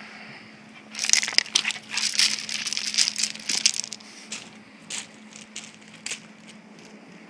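Loose river rock crunching and clattering under the scrabbling paws of two dogs tugging on a rope toy. A dense run of crunches lasts from about one to four seconds in, followed by a few scattered crunches.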